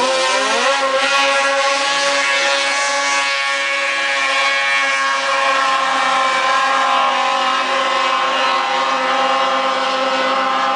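Racing snowmobiles revving hard off the beach start, their pitch climbing sharply, then holding a steady high engine whine at full throttle as they skim across open water.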